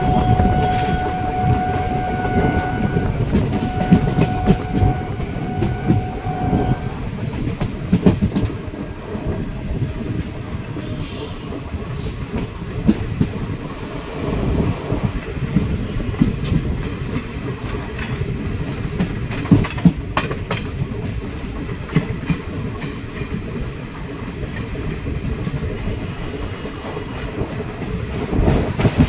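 Indian express passenger train running on the track, its wheels rumbling and clattering over the rail joints, heard close up from the doorway of a moving coach. Two long blasts of the train horn sound in the first seven seconds.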